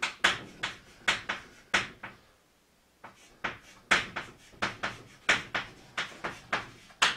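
Chalk writing on a blackboard: a run of sharp taps and short scrapes as each stroke is laid down, about two or three a second, with a pause of about a second near the middle.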